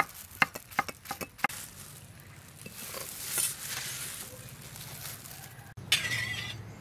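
Cleaver chopping through a thin duck-egg omelette onto a wooden cutting board, several quick knocks in the first second and a half, then stopping, leaving a steady faint background hiss.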